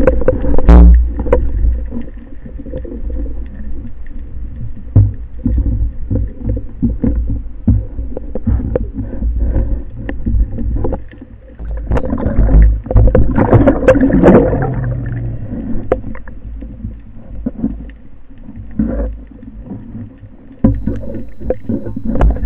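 Underwater sound from a speargun-mounted camera: a steady low water rumble with many short knocks and clicks from the gun and line being handled. About twelve seconds in it grows louder into a rush of water and air bubbles as the diver reaches the surface.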